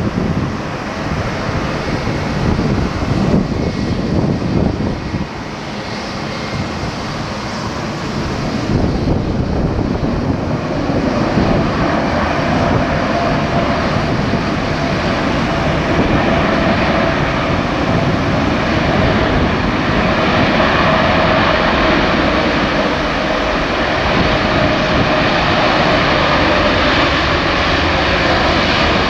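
Jet engines of a KLM Boeing 787 airliner landing and rolling out along the runway. At first the noise is gusty in the low end, like wind on the microphone; about ten seconds in it turns louder and steadier, with a faint humming tone held above the rush.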